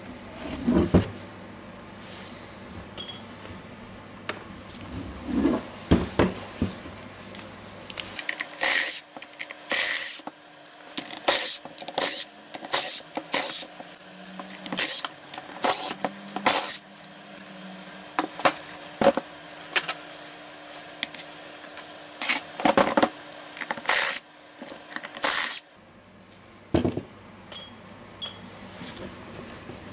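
DeWalt DCH273 rotary hammer and its small metal chuck parts being handled on a wooden bench: an irregular series of sharp clicks, knocks and light metallic clinks as the tool and rings are picked up and set down.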